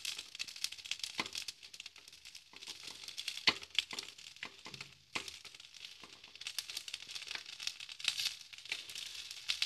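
Oil sizzling and crackling around appe frying in an appe pan, with several sharp taps as a wooden stick turns them in the cups.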